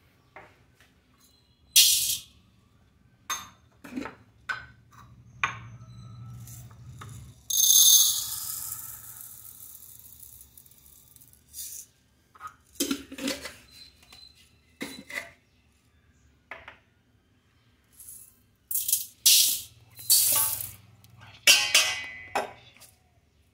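Dry grains and lentils poured and rattled into stainless-steel vessels, with sharp clinks and clatters of steel cups, lids and bowls. A longer pour of grains comes about eight seconds in and fades away.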